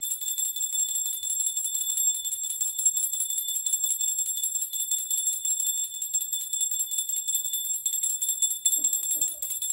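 Puja bell rung rapidly and without pause: a steady high ring with fast, even clapper strikes.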